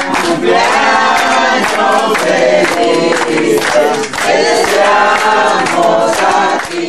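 A group of people singing a birthday song together.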